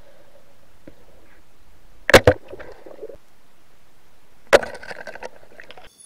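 Underwater sound: a steady hiss of water with two sharp, loud knocks about two and a half seconds apart, each followed by a short rattle. The hiss cuts off near the end.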